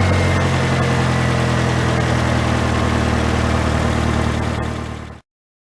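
Saturn car engine idling steadily, then the sound stops abruptly about five seconds in.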